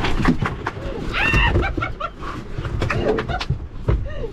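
Knocks and thuds as a blacktip shark is heaved aboard a small fibreglass boat into a cooler and thrashes against it, with a short strained cry about a second in and wind rumble on the microphone.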